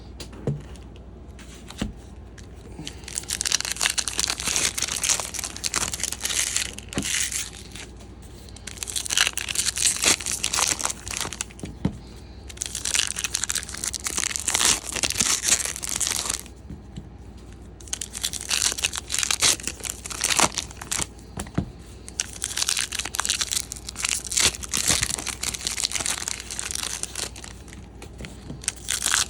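Plastic wrapping of a trading-card hobby box and its packs crinkling and tearing, in about five stretches of a few seconds each with quieter gaps between, peppered with small clicks.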